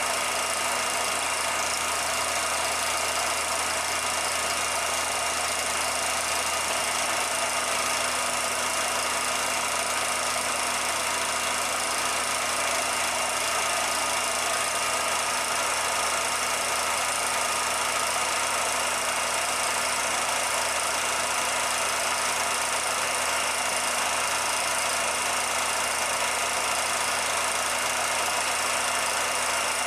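Steady mechanical running noise of a 16mm film projector: an even whirr and hiss with a constant hum, unchanging throughout.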